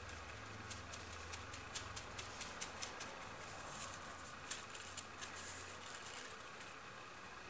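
A brush dabbing silver leaf onto a varnished piece: faint irregular taps and crinkles, several a second at first and sparser later, over a low steady hum that stops about six seconds in.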